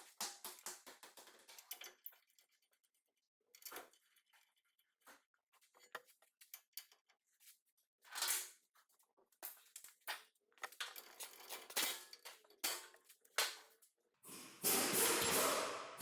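Hand tools clinking and tapping against the steel wheel hub assembly in scattered short metallic knocks, with pauses between them. Near the end comes a longer rasping noise of about a second and a half.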